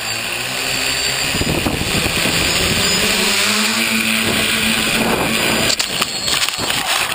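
Electric motors and propellers of a tricopter whirring loudly, heard from the camera on board as it flies, the pitch shifting with the throttle. Almost six seconds in, the steady whir breaks into irregular clattering as the craft crashes into foliage.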